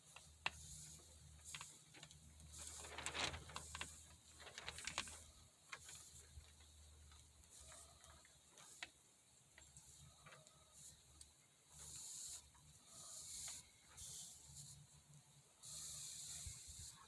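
Hot soldering iron tip wiped on a damp sponge: a few faint, short sizzling hisses with light taps and handling clicks.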